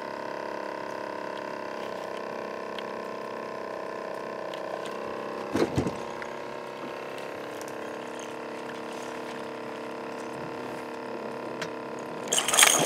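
A small electric motor hums steadily at several fixed pitches, with water sounds around it. There is a brief bump just over halfway through, and near the end a landing net splashes into the water as a catfish is brought to the boat.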